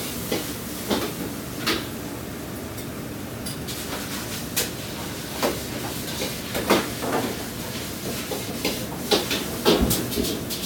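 Kitchen background clatter: scattered knocks and clicks of dishes and utensils over a steady noise, the loudest knocks near the end.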